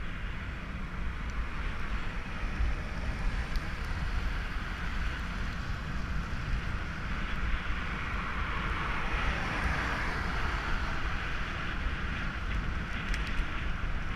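Wind buffeting a cyclist's helmet-mounted camera microphone while riding, a low rumble under a steady rushing hiss that grows a little stronger about two-thirds of the way through.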